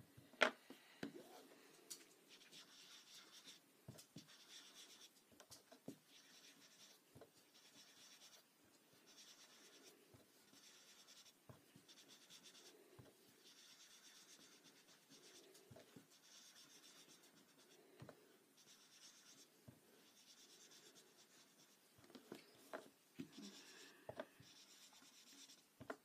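Foam pad of a mini ink blending tool rubbed over paper cardstock to blend in purple ink, a soft scratchy rubbing in repeated strokes of about a second each, with a few light knocks now and then.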